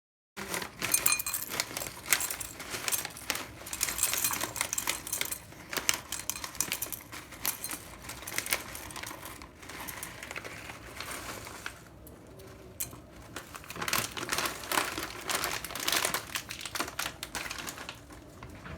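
Quick runs of small clicks, taps and rustles from objects being handled close by, in three stretches with two quieter pauses between them.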